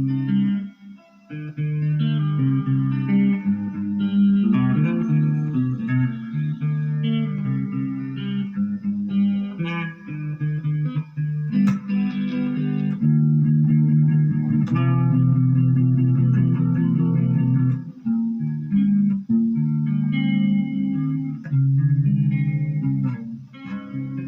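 Electric guitar played through a Marshall MG15GFX 15-watt combo practice amp on its clean channel with spring reverb, strummed chords and single notes ringing out. There is a short gap about a second in.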